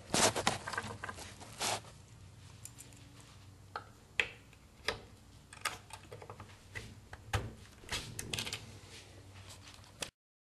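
Scattered clicks and light knocks of handling as an AR-15 upper receiver is seated on a plastic vise block and its two retaining pins are pushed in.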